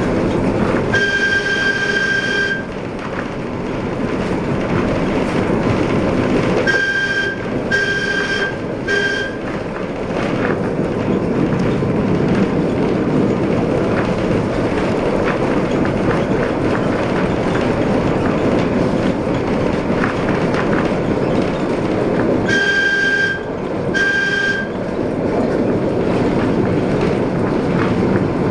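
Streetcar running along its rails with a steady rumble while its horn sounds one long blast about a second in, three short toots around seven to nine seconds in, and two more short toots about 23 seconds in.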